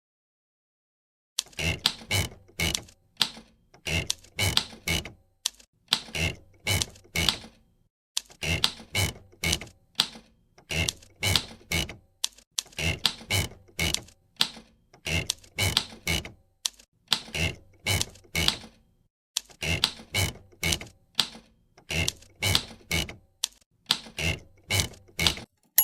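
Typewriter keys striking in quick clusters of a few strokes with short pauses between them, starting just over a second in. The keystrokes stand in for a cartoon character's speech.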